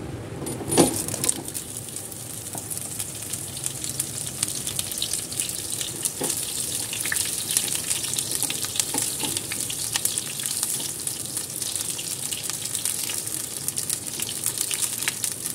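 Cauliflower florets dropped into hot oil in a kadhai, with a loud burst of sizzle as they land about a second in, then a steady crackling sizzle as they shallow-fry and are turned with a wooden spatula.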